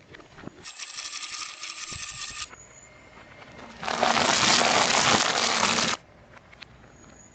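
Objects being crushed under a car tyre: first a rattling, ringing crunch lasting about two seconds, then after a short gap a louder two-second crushing noise that cuts off suddenly.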